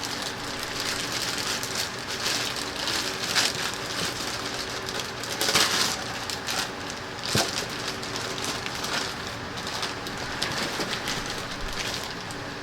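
Packing material rustling and crinkling in uneven flurries as parts are handled and pulled from a shipping box, with one sharp knock about halfway through.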